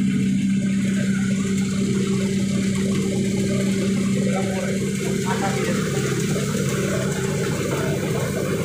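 Impact pulveriser running steadily while grinding sawdust into powder: a constant low drone with an even hiss over it. The hiss grows a little about five seconds in.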